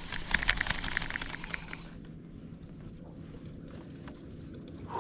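Fishing reel ticking rapidly as it is cranked, about ten ticks a second for roughly two seconds, then only faint wind noise.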